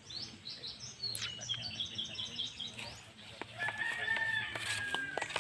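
A quick run of high, repeated bird chirps, then a rooster crowing in one long held call about three and a half seconds in, with a few sharp clicks.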